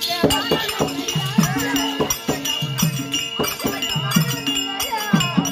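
Therukoothu folk-drama ensemble music: regular drum strokes under a steady held drone and a wavering melodic line, with ankle bells jingling.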